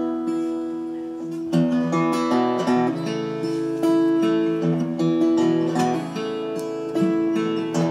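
Two acoustic guitars playing an instrumental introduction, strummed chords ringing and changing every second or so, before any singing.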